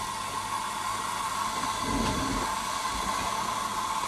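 Steady hiss of a small Bix gas burner firing the boiler of a Jensen 35 toy steam engine, with the water coming up to the boil and no steam yet. A soft low rumble comes about halfway through.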